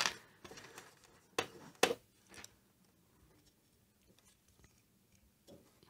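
Faint clicks and taps of small plastic Playmobil parts being handled and pressed onto a figure's arm, with two sharper clicks about a second and a half in.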